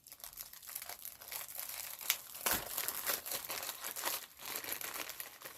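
Plastic packaging crinkling in irregular bursts as a diamond painting kit is handled and unwrapped.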